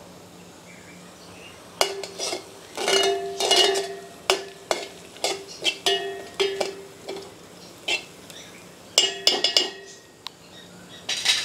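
A metal spoon scraping and knocking against a metal pot while stirring fried onions and spice masala, the pot ringing with each strike. The stirring starts about two seconds in as irregular clinks, pauses briefly near the end, then comes back in one short flurry.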